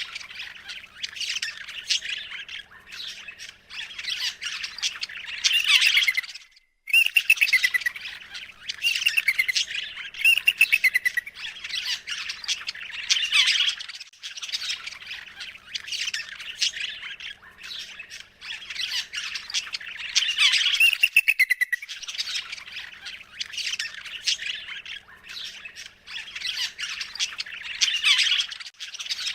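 Birds squawking and chirping in a dense, continuous stream, with a brief break about seven seconds in.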